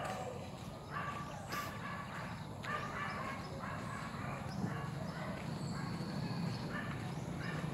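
An animal calling over and over, short calls about twice a second, over a steady low hum.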